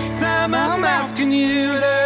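A song playing: a singing voice over held instrumental chords.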